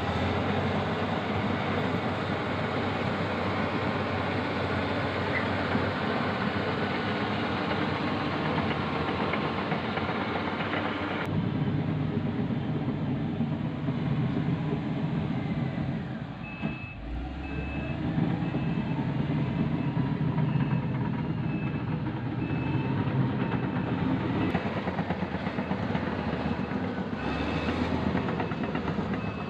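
Diesel engines of heavy earthmoving machines, a bulldozer and a road compactor, running steadily at work. About halfway through, a reversing alarm starts beeping at a steady, regular pace.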